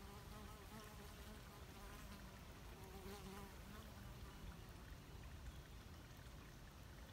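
A flying insect buzzing faintly, its pitch wavering as it moves, fading out about halfway through.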